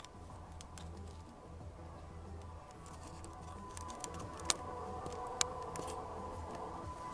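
Faint background music, with two sharp clicks about a second apart near the middle.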